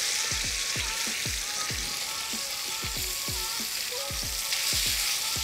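Pork chops frying in hot melted lard in a wide steel pan, turned with wooden tongs: a steady sizzle with frequent soft pops.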